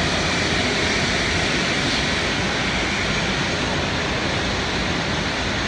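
Steady jet noise of a Lufthansa Airbus A380's four Rolls-Royce Trent 900 turbofans at taxi power as the airliner turns on the taxiway.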